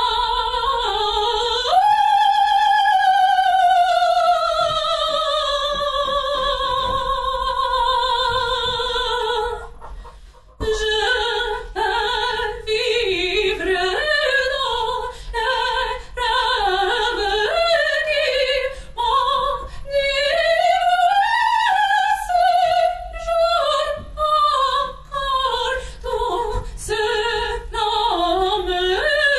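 Opera singing by a high voice with a strong vibrato: a long note that leaps up and then slides slowly down over about eight seconds, a brief break near the middle, then a livelier run of short rising and falling phrases.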